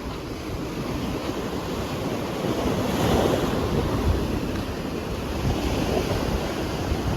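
Sea waves washing onto a beach, with wind buffeting the microphone; the surge swells about three seconds in.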